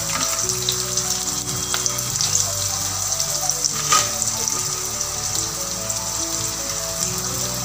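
Chopped onions frying in hot oil with mustard seeds, curry leaves and green chillies in a kadhai, making a steady sizzling hiss with a few sharp pops. Soft background music with held notes plays underneath.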